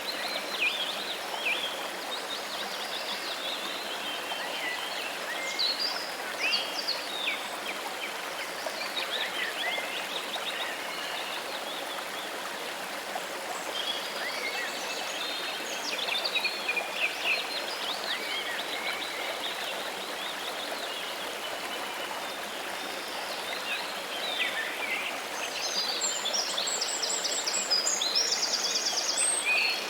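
Steady rushing of running water, with birds chirping and singing over it. A fast trill of high repeated notes comes near the end.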